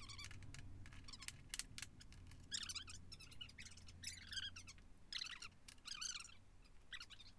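Faint clinks and scraping of steel parts being handled and fitted together: the bolted guide blocks and plate of a test-assembled guillotine tool in a drill-press vise. A few short scraping bursts fall in the middle and latter part, over a faint low hum.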